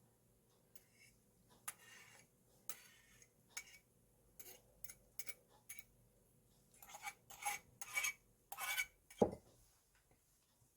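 Light clinks and scrapes of crockery and a metal utensil being handled, with a cluster of louder clinks a little past halfway and a dull knock near the end.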